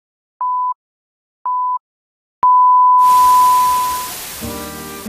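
Film countdown-leader beeps: two short, high beeps about a second apart, then a click and a long held beep about halfway through. A burst of hiss comes in about three seconds in and fades as music starts near the end.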